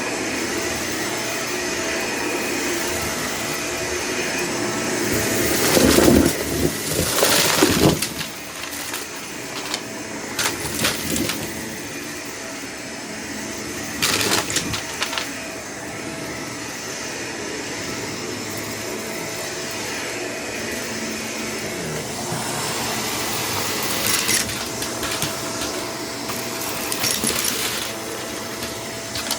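Vacuum cleaner running steadily, with a constant hum and a steady whine. Several louder crackling bursts come through, the first about six seconds in, as it sucks up the mess being tested.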